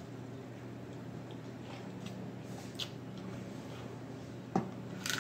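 Quiet eating sounds of sauced blue crab being picked apart by hand and fingers being licked, with a few soft clicks and one sharper click about four and a half seconds in, over a low steady hum.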